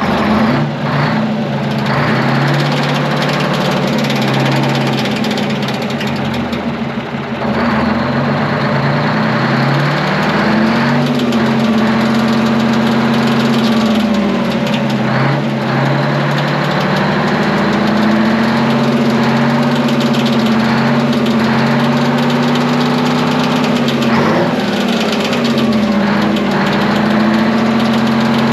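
Twin-turbo 12V71 Detroit Diesel, a two-stroke V12 diesel, catching right at the start and then running loud and steady. Its speed sags and picks back up a few times.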